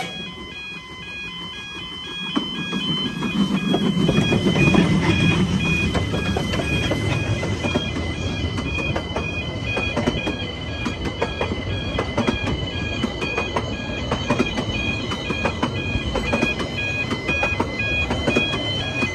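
Level crossing warning alarm sounding its alternating two-tone wail steadily. Over it, the Drakensberg Garratt steam locomotive passes with a swelling rumble, loudest about four to five seconds in, followed by the narrow-gauge coaches rolling by with their wheels clicking over the rail joints.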